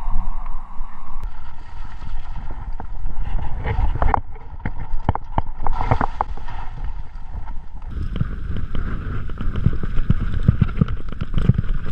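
Mountain bike riding fast down a rough, wet trail, heard from on the bike: a constant irregular clatter of knocks and rattles from the bike over stones and roots, over a low rumble from the tyres and wind.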